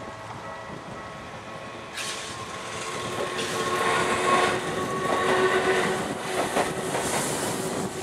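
Japanese level-crossing warning bell ringing steadily as a Y000-series electric train passes over the crossing from about two seconds in. The train is loudest around four to six seconds in, with its wheels clicking over the rail joints near the end.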